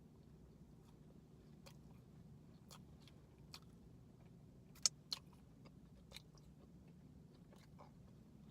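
Faint close-up chewing of a Sausage McMuffin: scattered soft wet mouth clicks and smacks, with two sharper smacks about five seconds in, over a low steady room hum.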